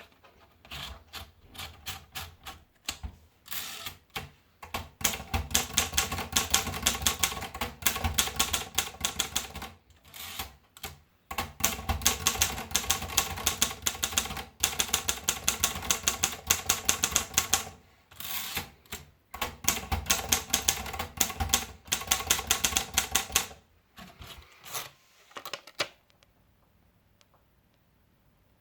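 Olivetti MP1 manual portable typewriter being typed on in fast runs of keystrokes, broken by short pauses. The typing stops near the end.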